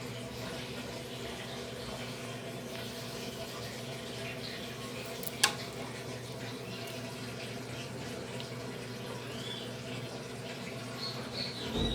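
Midea 12 kg top-load washing machine filling with water: a steady rush of water over a low hum. A single sharp click about five and a half seconds in.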